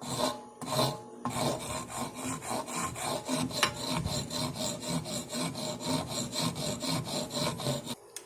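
A wooden knife handle being smoothed by hand, with quick back-and-forth abrasive strokes against the wood, about three a second, stopping near the end.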